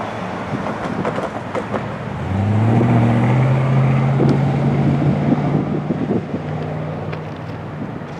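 Freight train approaching, led by a GE AC44C6M diesel locomotive. A low drone of several steady tones comes in sharply about two seconds in and fades out near the end, over rumble, wind and scattered knocks.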